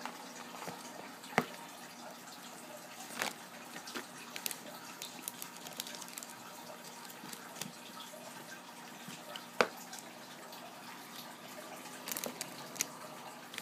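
Handling noise as a boxed doll is unwrapped from its cloth: scattered light clicks and taps, with a couple of sharper knocks and a small cluster near the end, over a steady low hum.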